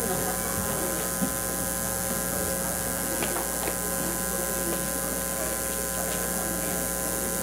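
Steady electrical hum, made of several constant tones, with a few faint clicks, one about a second in.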